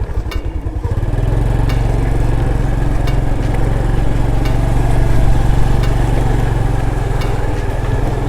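Small motorbike engine running steadily while being ridden, picking up strength about a second in and then holding an even speed.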